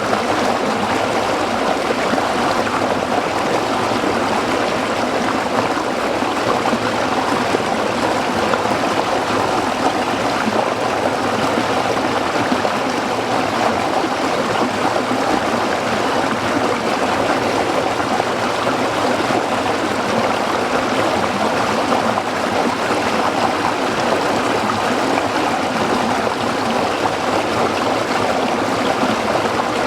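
A small stream running and burbling over rocks, a steady rushing and trickling of water.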